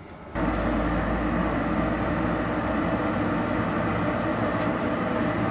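Forge blower switched on about half a second in, then a steady rushing blast of air through the forge fire with a low hum, as the tar-coated hasp is heated to burn off the excess tar.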